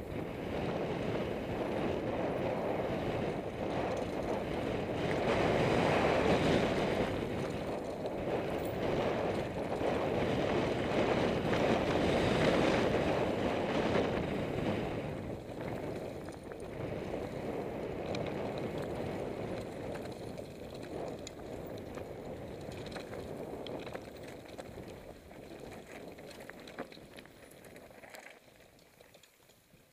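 Mountain bike descending a grassy dirt trail: wind rushing over the microphone with the hiss of tyres rolling on the track. It swells twice in the first half and falls away near the end.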